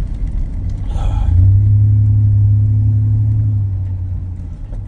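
Chevrolet C1500 pickup's engine running under throttle, heard from inside the cab: a low drone that swells about a second in, holds at steady revs, then eases off near the end.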